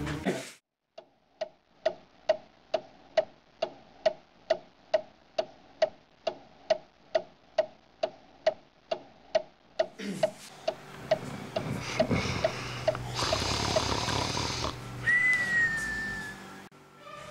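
A clock ticking steadily, a little over two ticks a second. From about ten seconds in, snoring comes in over it, and a short, slightly falling whistle sounds near the end.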